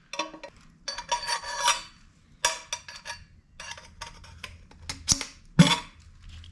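Metal exhaust header pipes clinking and clanking as they are handled and fitted, a string of short, ringing metal knocks, the sharpest about five and a half seconds in.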